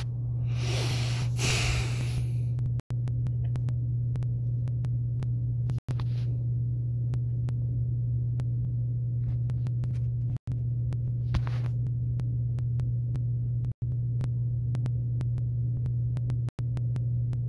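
A steady low hum, broken five times by a split-second dropout, with a short burst of hissing or rustling about a second in.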